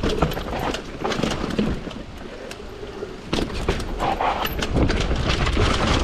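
Commencal Supreme DH downhill mountain bike clattering over a rough trail: tyres over dirt and rocks, chain slap and frame knocks, with wind rumble on the microphone. The clatter eases off for about a second midway, then picks up again.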